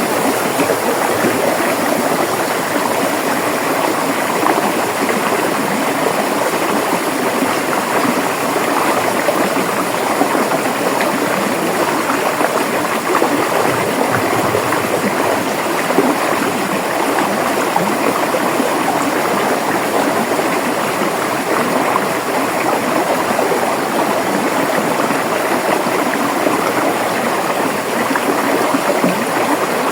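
A river flowing over stones, its water running and gurgling in a steady rush.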